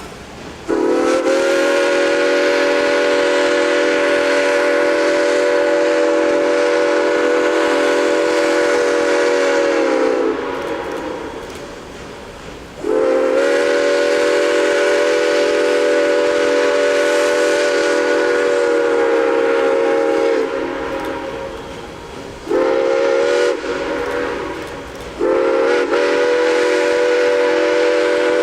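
Multi-chime steam locomotive whistle sounding a steady chord in four blasts: long, long, short, long, the grade-crossing signal. Each blast starts sharply and tails off over a second or two.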